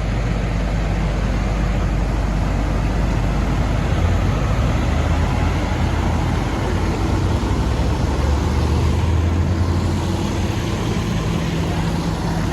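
Motor vehicle engine running steadily with a low hum that swells around four seconds in and again about eight to ten seconds in.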